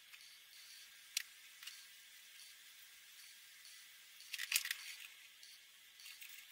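Felt-tip marker nib scratching faintly on paper, with a sharp plastic click about a second in and a louder cluster of clicks about four and a half seconds in as one marker is swapped for another.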